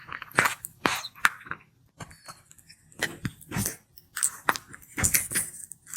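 Sulcata tortoise biting and chewing food, a run of irregular wet crunches and clicks close to the microphone.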